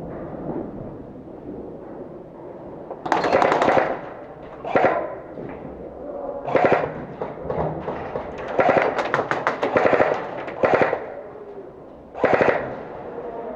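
Airsoft guns firing short full-auto bursts of rapid clicks, about seven bursts with pauses between them, the first about three seconds in and the last near the end.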